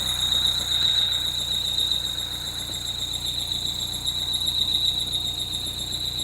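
2013 Peugeot 208 GTi's 1.6-litre turbocharged four-cylinder engine running with a steady, high-pitched belt squeal, one constant tone over the low, even engine note.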